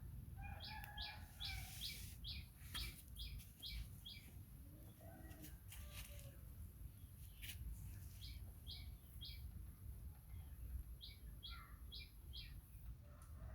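A small bird chirping in runs of short, quick, repeated high notes, about three a second: a long run in the first few seconds, then a run of three, and four more near the end. A steady low rumble lies underneath.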